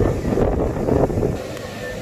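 Wind buffeting the phone's microphone out on the water, a loud gusty rumble that eases about two-thirds of the way through.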